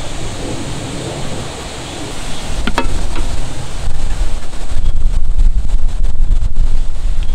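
Strong wind buffeting the microphone: a steady rush that builds into heavy, uneven low rumbling gusts from about three seconds in, with one brief click shortly before.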